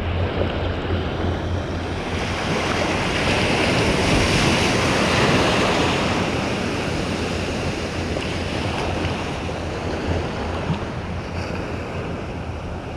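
Ocean surf washing in around the feet in shallow water, swelling as a wave rushes up about two seconds in and easing off a few seconds later, with wind buffeting the microphone.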